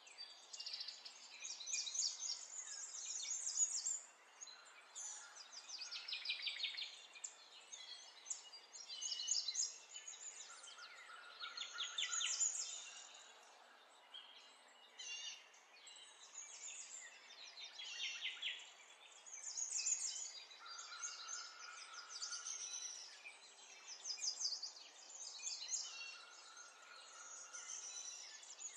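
Wild birds singing and chirping, with repeated fast trills that fall in pitch and a few short held whistles, over a faint outdoor hiss.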